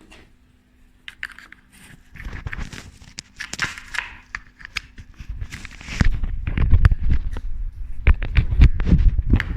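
Close handling noise from a laser therapy pad and its USB cable being picked up and handled: scattered clicks, scrapes and rustling, growing into dense knocks and rubbing from about six seconds in.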